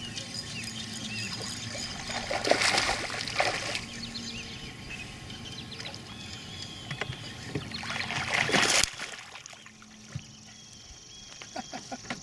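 Water splashing and sloshing around a small fishing boat, with two louder splashes, about two and a half seconds in and again near eight seconds. The sound cuts off suddenly just before nine seconds.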